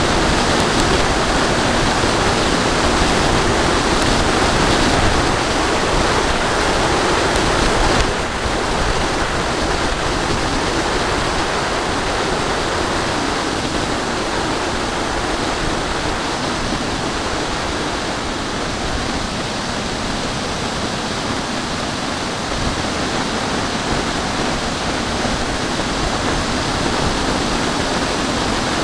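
Steady rushing noise of airflow buffeting a camera carried on a small aircraft in flight. The level dips slightly about eight seconds in.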